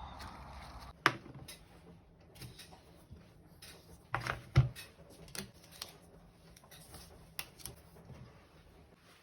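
Small objects being handled and set down: a soft rustle, a sharp click about a second in, two heavier knocks around four seconds in, then scattered light clicks and taps.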